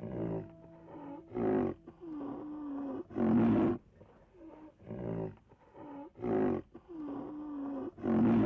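An animal calling over and over: loud, rough calls about every one and a half to two seconds, with lower wavering tones between them.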